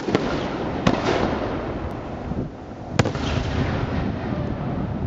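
Aerial fireworks bursting: sharp bangs right at the start, just under a second in and about three seconds in, over a continuous rumble and crackle of further fireworks.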